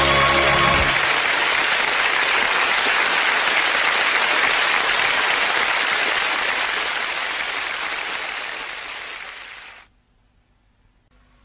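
Studio audience applauding, with the tail of the theme tune ending about a second in. The applause fades away and gives way to near silence about ten seconds in.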